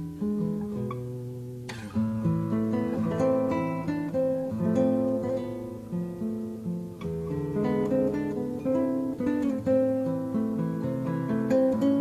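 Acoustic guitar music: a plucked melody over bass notes, growing louder a little under two seconds in.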